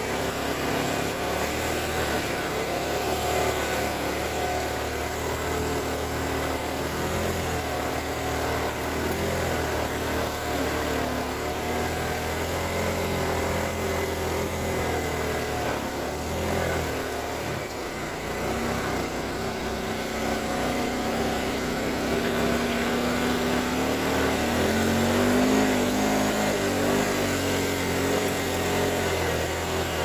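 ATV engine running at trail-riding speed, its pitch shifting with the throttle. It rises and gets a little louder about three-quarters of the way through.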